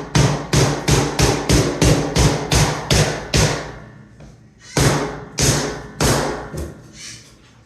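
Hammer blows knocking vinyl plank flooring into place: a quick run of about a dozen strikes, roughly three a second. After a short pause come four slower blows that grow fainter.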